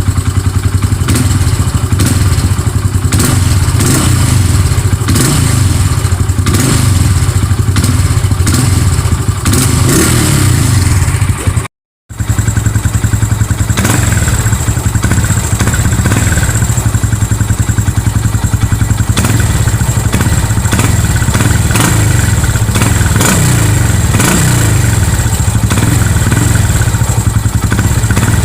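Honda Pop 110i motorcycle's single-cylinder four-stroke engine idling and blipped up in short revs, heard at the exhaust. A brief cut about twelve seconds in separates two clips: the stock exhaust sound, then the exhaust fitted with a homemade drink-can tip piece that changes its note.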